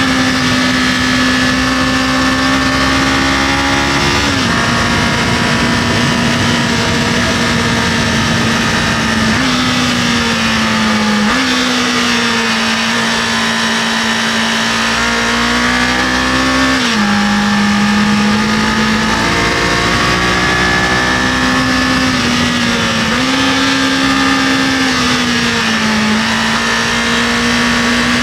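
Kawasaki KLE500's parallel-twin engine running under way on the road, its note holding fairly steady but jumping up and down in pitch several times, about every five to seven seconds, as the rider shifts gears, with a rushing noise underneath.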